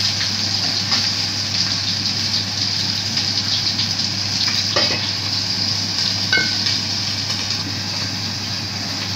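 Fish shallow-frying in oil in a pan, a steady sizzle throughout. A couple of short clatters from the spatula and pan, the second, about six seconds in, with a brief ring as the glass lid is set on the pan.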